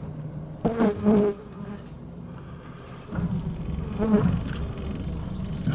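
Insects buzzing close by, a low buzz that comes and goes, with louder bursts about a second in and again around four seconds in.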